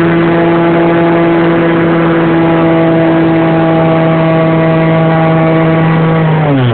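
Electric motor and propeller of a radio-controlled Cessna 182 model plane, heard from a phone mounted on its fuselage: a steady drone over rushing air. Near the end the pitch drops sharply as the motor slows.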